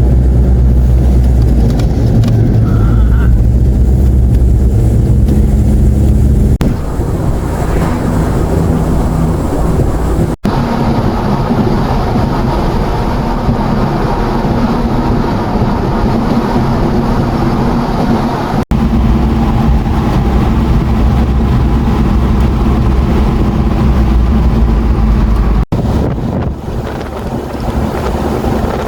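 Motor vehicle engine running steadily with wind rushing past, broken by three brief, abrupt drop-outs.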